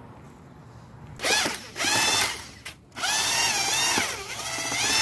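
Corded electric drill with a paddle mixer stirring elastomeric roof coating in a five-gallon plastic bucket. It starts in two short bursts about a second in, then runs steadily from about three seconds, its pitch wavering as the motor works against the thick coating.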